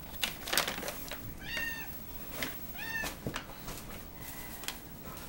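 Domestic cat meowing twice: two short, high-pitched meows about a second and a half apart, each rising and falling. Light knocks and rustles run underneath.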